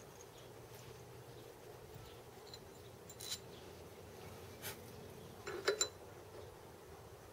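Sharp little metal-on-metal clicks and taps as a metal mandrel is worked into the bore of a cast pillow block held in a lathe chuck: single clicks about three and about four and a half seconds in, then a quick cluster of three near six seconds, the loudest. A faint steady hum runs underneath.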